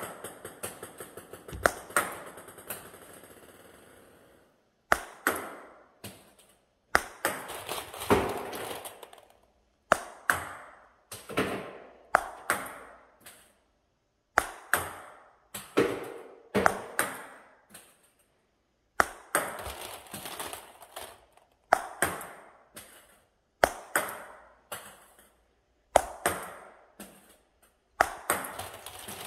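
Solo table tennis backhand practice: a plastic ping-pong ball dropped from the hand and struck with a paddle about once every second or two. Each stroke is a sharp tock followed by a quick run of smaller bounces dying away.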